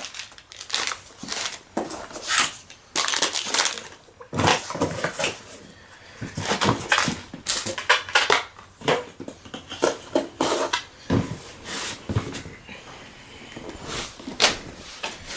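Packaging being handled: irregular crackling and rustling of plastic and cardboard, with small knocks as boxed model parts are moved.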